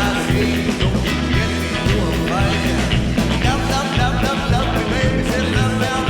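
Rock music soundtrack with a steady beat, bass and drums, and a vocal or guitar melody.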